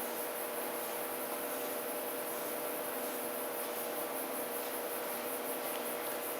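A FURminator deshedding tool combing through a cat's fur: faint, repeated rubbing strokes over a steady background hum.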